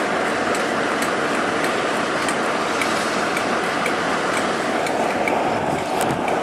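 Class 47 diesel locomotive slowly hauling the Class 52 diesel-hydraulic D1009 past on the rails: steady train noise with a faint, regular ticking about two to three times a second. Brief handling knocks on the microphone near the end.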